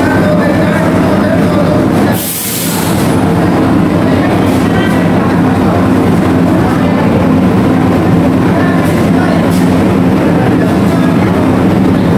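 Steady low engine drone with a constant hum filling a ferry's enclosed steel vehicle deck, with voices murmuring underneath. About two seconds in, a brief rustle muffles it for a moment.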